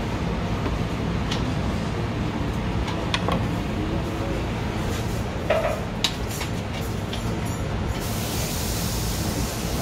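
Steady hum of commercial kitchen ventilation, with a few light clicks and knocks. About eight seconds in, a high hiss rises over it.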